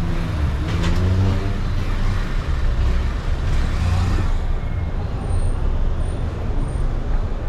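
City street traffic: motor vehicles running past with a steady low engine rumble.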